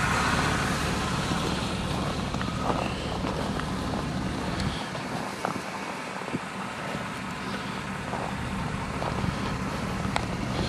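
A 2002 Cadillac Escalade's Vortec HO V8 idling steadily. The low hum thins for a couple of seconds around the middle, then comes back.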